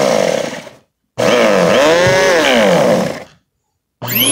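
Bissell Power Force Compact upright vacuum cleaner's motor and brush roll running in three short bursts with sudden starts and stops; in the middle, longest burst the pitch rises and then falls. This is a test run of a newly fitted drive belt turning the brush roll.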